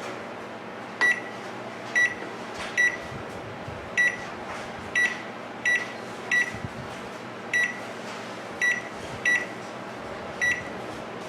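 Samsung microwave control panel beeping as its keypad buttons are pressed one after another: eleven short high beeps at uneven intervals, showing that the keypad registers each press after its ribbon cable was reseated. A steady low hum runs beneath.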